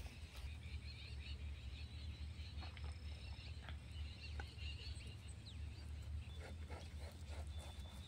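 Outdoor rural ambience: many small birds chirping over a low, steady rumble, with a few faint clicks scattered through.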